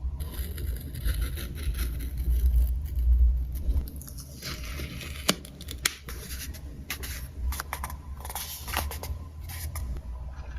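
Paper and stickers being handled for a journal layout: irregular scraping and rustling with small crinkles and low handling thumps, and one sharp click about five seconds in.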